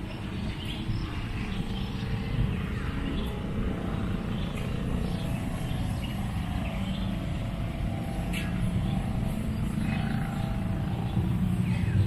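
A steady low rumble, with faint bird chirps here and there.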